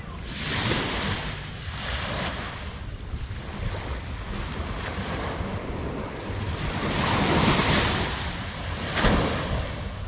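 Small waves washing up onto a sandy beach, each swelling and fading in a hiss, with a sharper wash about nine seconds in. Wind rumbles on the microphone throughout.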